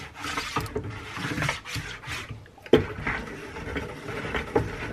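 Teff injera batter being stirred in a plastic bucket: the utensil scrapes and swishes through the batter against the bucket's sides in repeated, uneven strokes, with one sharp knock a little under three seconds in.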